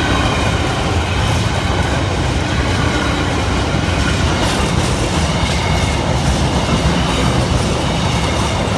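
Freight train wagons rolling past close by: a steady, loud rumble of steel wheels on the rails, with clickety-clack over the rail joints and a faint wheel squeal.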